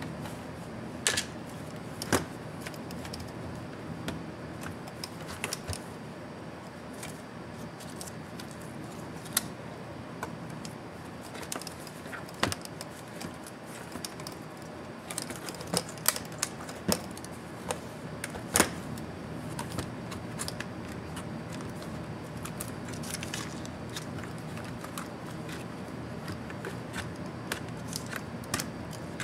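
Irregular sharp clicks, taps and light knocks as a partly disassembled metal laptop chassis and its attached display are handled, turned over and set down on a workbench. The clicks come most thickly about halfway through, over a steady low hum.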